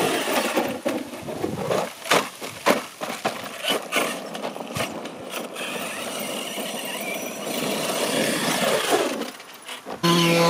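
Radio-controlled off-road trucks driving on loose dirt and gravel: motor whine and tyres scrabbling, with a run of sharp knocks and clatters a couple of seconds in and a falling whine near the end. Right at the end a loud small petrol engine of a large-scale RC short-course truck starts running.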